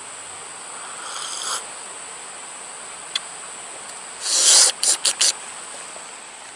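A steady high-pitched insect drone over background hiss. A short noisy sound comes about a second in, then a loud burst of noise past the four-second mark followed quickly by three shorter ones.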